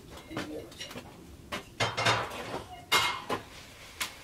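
Clinks and knocks of hard objects being handled, with two louder clattering scrapes about two and three seconds in.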